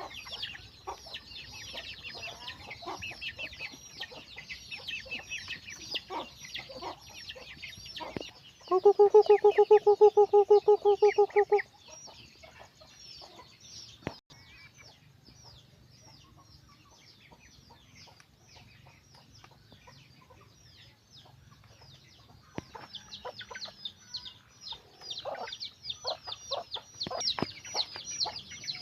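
A flock of chickens with many chicks cheeping in fast, high chirps, thinning out for a stretch in the middle, among hens clucking. About nine seconds in, a loud, steady-pitched pulsing call lasts about three seconds.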